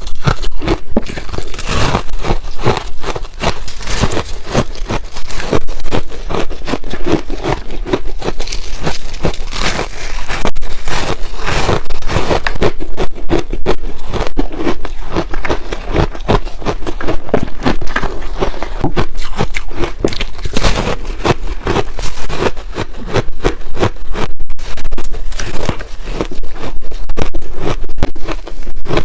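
Close-miked crunching of hard refrozen ice being bitten and chewed, a dense, unbroken run of cracks and crackles.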